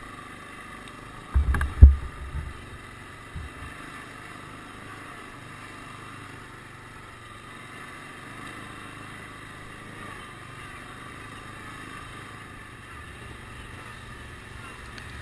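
CFMoto CF500 ATV's single-cylinder engine running steadily under way, with a couple of loud low thumps about a second and a half in.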